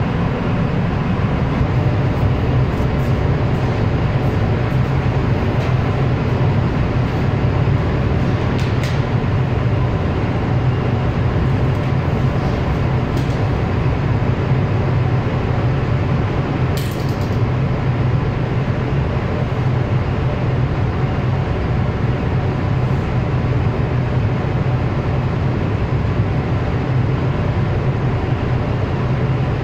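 Steady, loud machinery drone with a strong low hum, with a few light metallic clicks from work at the generator's battery terminals.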